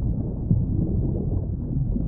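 Underwater ambience: a steady, muffled low rumble of water with no high sounds in it.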